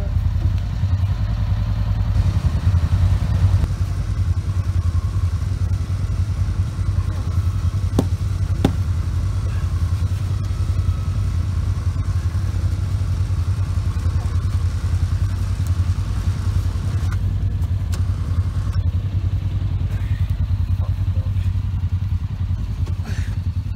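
ATV engine idling steadily, a low even hum, with a couple of sharp knocks about eight seconds in.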